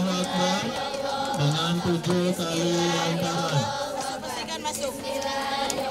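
Group chanting of a prayer in unison. A low voice holds long notes for the first three and a half seconds, then the chant carries on with shorter, changing phrases.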